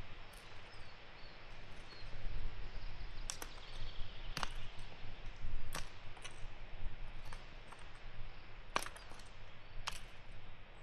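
Hand hilling tool working potato-field soil: about five sharp, irregular scrapes and knocks against a steady outdoor background.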